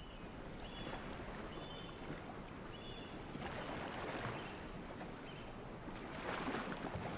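Water and wind ambience around a boat, with several short high chirps scattered through the first five seconds.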